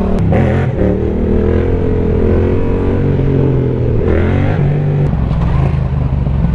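Yamaha MT-07's parallel-twin engine running through an Arrow aftermarket exhaust while riding, its pitch rising and falling with the throttle and stepping noticeably about three and five seconds in.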